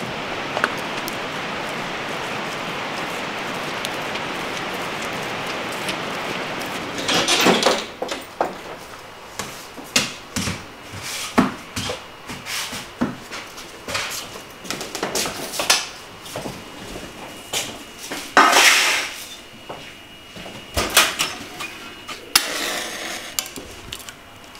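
Steady rain hiss for about the first seven seconds, then a run of knocks and clatters as split firewood is handled in a wood-burning oven, with a match struck and flaring near the end.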